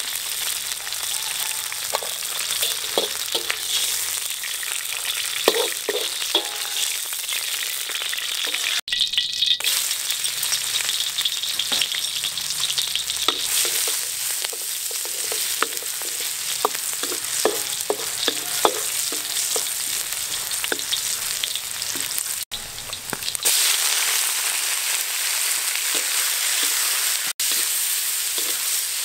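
Food sizzling in oil in a hot wok, green peppercorns and then garlic, chilli and octopus pieces, with the scrape and click of a spatula stirring it. The sizzle breaks off briefly three times.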